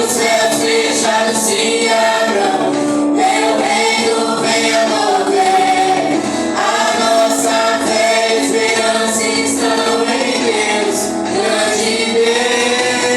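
A group of voices singing a Christian worship song together, with long held notes that glide between pitches.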